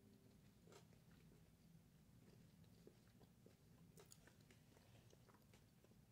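Near silence with faint chewing of a dark chocolate bar with hazelnuts and crunchy brittle, heard as a few soft scattered clicks over low room hum.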